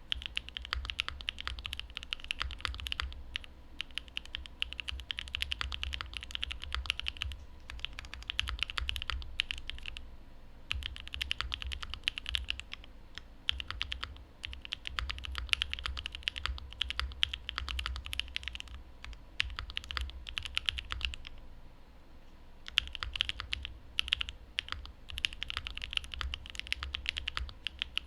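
Typing on a Mode Envoy custom mechanical keyboard with a carbon fiber plate, lubed Cream Soda linear switches and GMK Thai Tea keycaps: fast continuous keystrokes with a deep low thock under each click, broken by a few short pauses.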